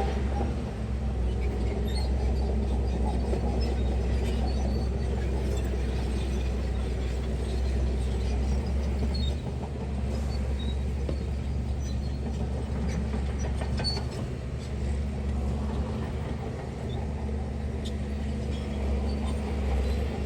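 Heavy diesel engine of construction machinery running steadily, a deep low drone with a few faint clanks over it.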